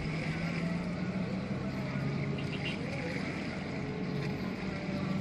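An engine running steadily with a low, even hum over general outdoor noise.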